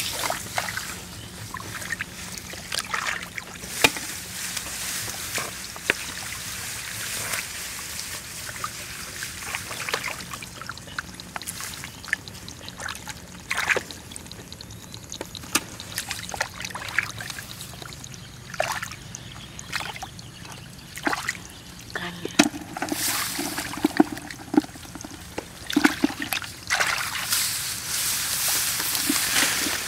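Shallow water trickling and sloshing, with many scattered small splashes and clicks, and louder splashing stretches near the end.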